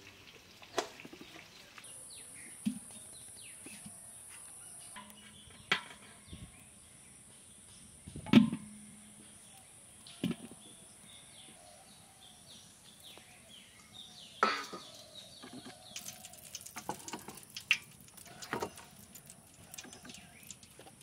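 Scattered knocks and clanks of aluminium cookware, the loudest about eight seconds in, with a steady high whine and faint bird chirps behind. From about sixteen seconds in, a light crackling sizzle comes in as the melted ghee heats in the pot.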